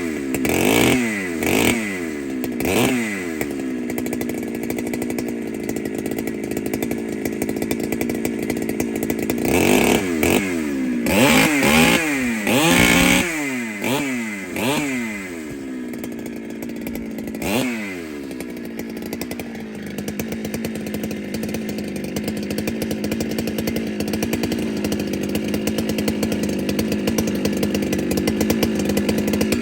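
Ported Husqvarna 395 two-stroke chainsaw, blipped up and down in quick revs a few times, then held at a steady high pitch for long stretches as it cuts wood. Another burst of revving comes in the middle before it settles back to the steady high pitch.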